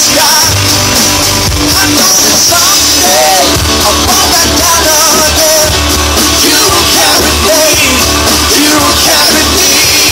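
Live rock band playing loud: electric guitars, drums and a lead singer's vocal.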